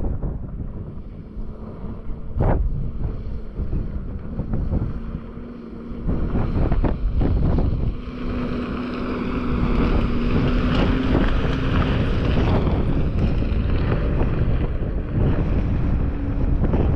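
Wind rumbling on the microphone while a Jeep Grand Cherokee drives past on a dirt track; its engine gets louder from about six seconds in as it comes close, then it carries on away.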